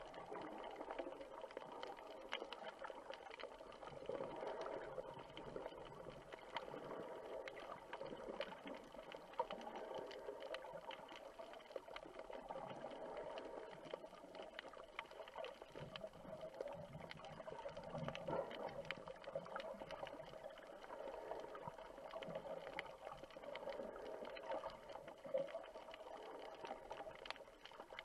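Underwater sound picked up by a camera in its waterproof housing: muffled water noise with faint crackling clicks throughout, over a steady hum.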